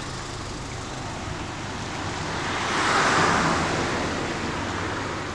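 Street ambience with a road vehicle passing: its tyre noise swells to a peak about three seconds in, then fades.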